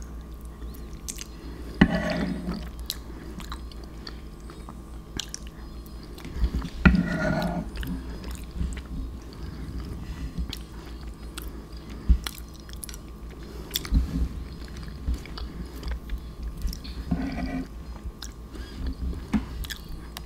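Close-miked chewing and mouth sounds of someone eating macaroni and cheese, with scattered sharp clicks and a couple of louder, longer mouth sounds about two and seven seconds in.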